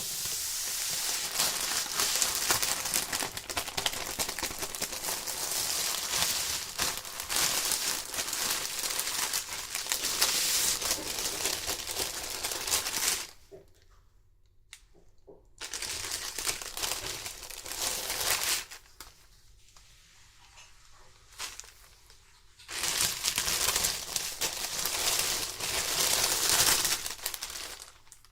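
Packaging being handled and opened during a doll unboxing: crinkling and crackling in three long stretches, with two short pauses, the first about 13 seconds in.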